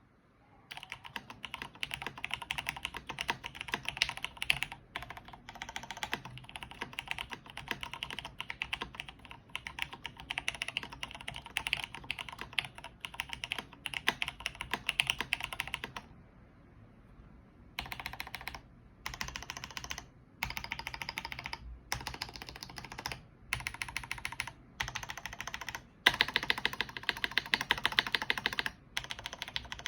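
Typing on a Rama Works Kara mechanical keyboard with lubed Cherry Hyperglide MX Black linear switches and GMK keycaps, without a sound dampener. A fast, continuous run of key clacks stops a little past halfway for a pause of about two seconds. Typing then resumes in short bursts with brief gaps between them.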